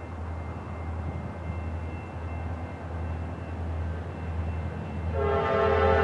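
Approaching Norfolk Southern diesel locomotive: a low rumble that grows steadily louder, then the locomotive's horn starts blowing loudly about five seconds in.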